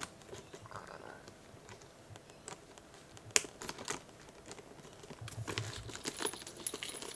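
Light clicks and taps of a handbag's metal padlock and strap hardware being handled as the padlock is hung on the shoulder strap, with one sharper click about three and a half seconds in and a busier run of small clicks near the end.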